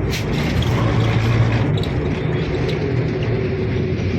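Steady low rumble of a moving vehicle, with a brief click near the start.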